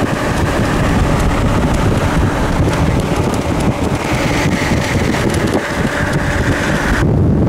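Wind buffeting the microphone: a loud, steady rumble with hiss above it. About seven seconds in, the hiss cuts out suddenly and the low rumble goes on.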